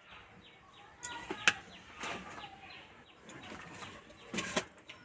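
Faint chirps and clucks of birds and chickens, with several sharp clicks and knocks about a second in and again near the end.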